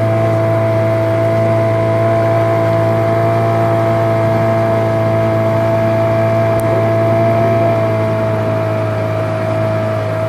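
A motorboat's engine running at a steady speed: a constant low drone with a steady whine above it.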